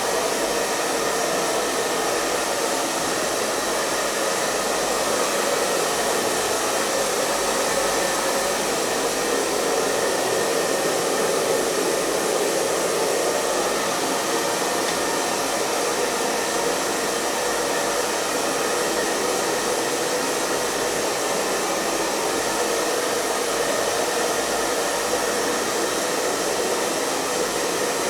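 Hair dryer running steadily at constant speed: an even, unbroken rush of blown air and motor noise, fullest in the lower middle, with a faint steady hum.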